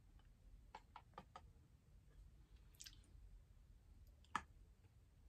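Faint eating sounds from a parfait: a metal spoon clicking several times in quick succession against a plastic cup, a brief soft slurp of yogurt mid-way, and one sharper click near the end.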